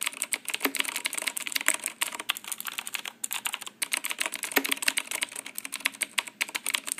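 Fast typing on a Rosewill RK-9000 mechanical keyboard with Cherry MX Blue switches: a rapid, uneven stream of sharp key clicks.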